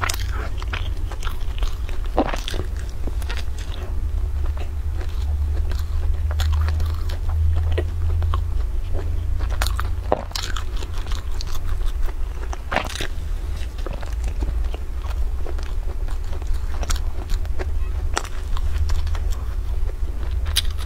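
Close-up eating sounds of crusty bread: crisp crunches and bites at irregular intervals, with chewing in between, over a steady low hum.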